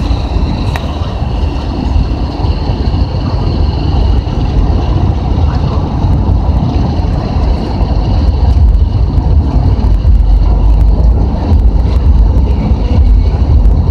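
Road and wind noise from a car driving along a highway, heard from inside the car: a steady, loud rumble that grows a little louder in the second half.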